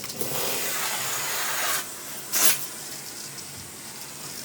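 Electrolux central vacuum sucking air through a non-electric hose with a steady hiss that drops a little in level about two seconds in, with one brief louder burst of intake noise around two and a half seconds.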